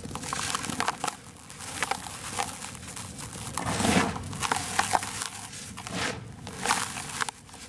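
Dry sand-and-cement lumps crushed by hand and fingers raking through loose cement powder: dense, irregular gritty crunching and crumbling, with a heavier crunch about four seconds in.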